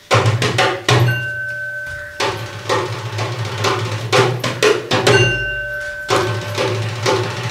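Hand drumming on a wooden box in a quick rhythm of sharp strokes. A held high note sounds over it twice.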